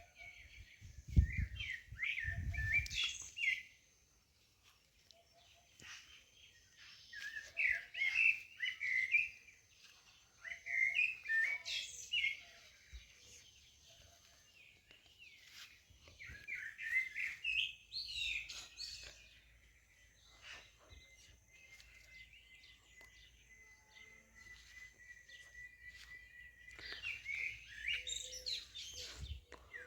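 A songbird singing in bouts of quick, twittering chirps, each a second or two long, about five bouts a few seconds apart. A long thin steady note holds between the last two bouts, and low rumbling thumps sound under the first bout.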